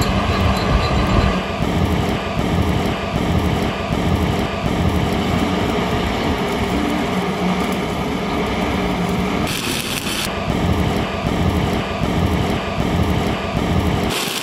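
Stick (SMAW) arc welding of a root pass on a steel pipe joint: a steady hissing crackle from the arc, with a sharper burst of hiss about nine and a half seconds in. Under it a loud low machine rumble pulses about twice a second.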